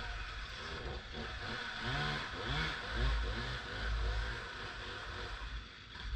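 Two-stroke chainsaw engine revved up and down several times, its pitch rising and falling, easing off near the end.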